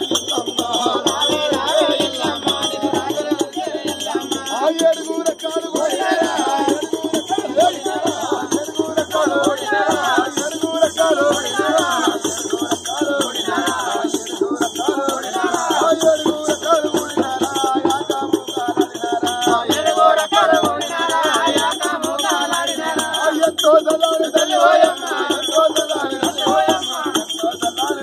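Men singing a devotional folk song over a steady jingling of ankle bells and rattles, the voices rising and falling without a break.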